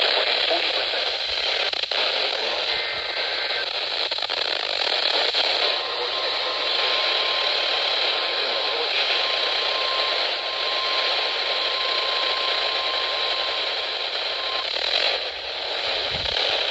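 Weather radio receiver giving heavy, steady static hiss from a weak broadcast signal. A faint steady tone sits under the hiss for about nine seconds in the middle: the weather radio alert tone ahead of a special marine warning.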